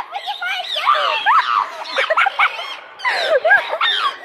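A flock of chickens clucking and calling, many short rising-and-falling calls overlapping one another.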